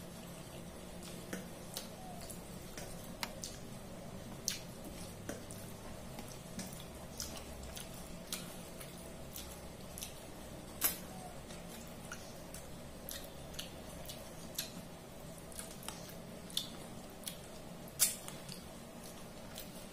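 Eating by hand: scattered wet clicks and smacks of a mouth chewing rice and fish curry, with fingers squishing rice on a steel plate. The clicks come irregularly, two sharper ones about halfway and near the end, over a faint steady hum.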